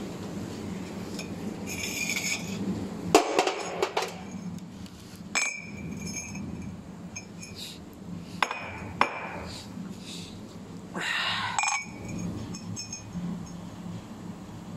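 Laser-cut round steel tube being handled and knocked: several sharp metallic clinks, some ringing briefly, over a steady low machine hum.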